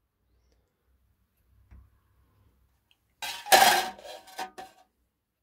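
Thin sheet-metal cowl top, cut from a scrap saucepan lid and riveted into a cone, clattering with a brief metallic ring as it is set down on the workbench about three seconds in.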